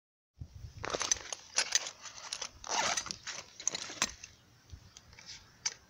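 Metal hand tools clinking and rattling in a fabric tool pouch as a spark plug wrench is taken out, with rustling in between. It dies down after about four seconds, with one more sharp click near the end.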